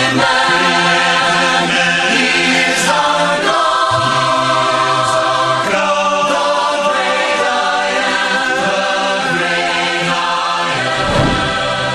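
A choir singing a hymn a cappella in close harmony, holding sustained chords that change every second or two.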